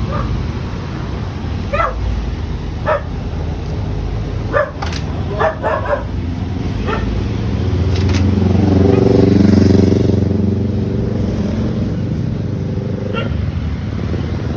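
A dog barking in short single barks over a steady rumble of road traffic. A motor vehicle passes about eight seconds in, its engine rising and then fading, the loudest sound.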